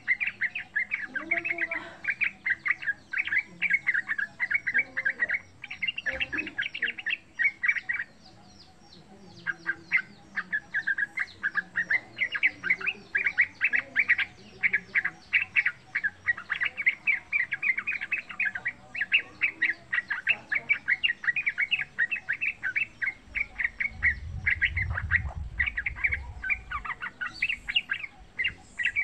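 Yellow-vented bulbul singing long, rapid runs of short chattering notes, with one pause of about two seconds about a third of the way through.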